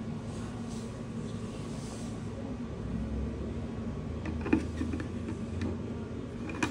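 Plastic motorcycle helmet visor being handled and offered up to the helmet shell, giving a few light clicks and taps, the sharpest about halfway through and another near the end. A steady low hum runs underneath.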